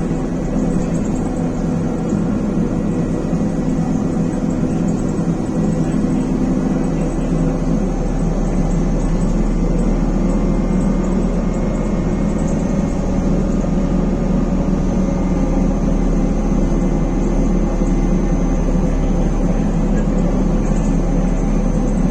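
BKM-321 trolleybus heard from inside the cabin while under way: steady running and road noise with thin whining tones from the electric traction drive, which drift slightly in pitch about halfway through.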